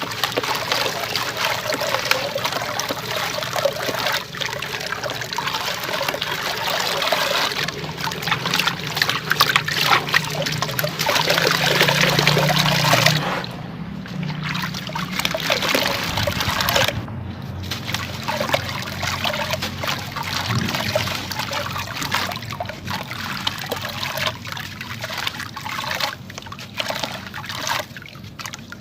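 Wet sand-cement crumbling as it is dipped in water and broken up: dense crackling with trickling water, louder in the first half and easing off about halfway through.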